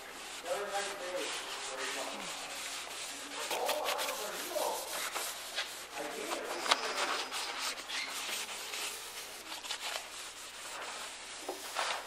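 Cloth rag rubbing in repeated quick strokes over the sanded, primed steel rocker panel of a 2005 Ford Escape, with people talking in the background.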